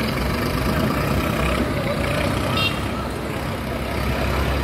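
Busy street noise: a steady rumble of traffic mixed with the murmur of a crowd's voices, and one brief high-pitched beep about two and a half seconds in.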